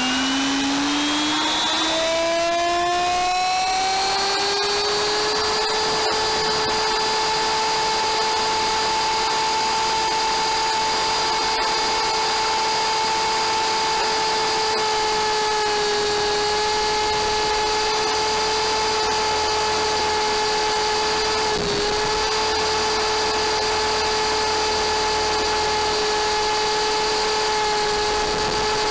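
Electric RC helicopter's motor and gear drive whining as the rotor spools up, the pitch rising over the first few seconds, then holding steady at head speed, with one brief dip about two-thirds of the way through.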